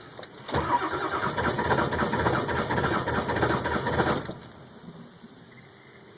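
2002 Ford F350's 7.3 litre Powerstroke V8 turbo-diesel turning over on the starter in a steady, pulsing rhythm without catching, from about half a second in until the cranking stops after about four seconds. This is a cold no-start, with the glow plugs or battery suspected even though new glow plug relays are fitted.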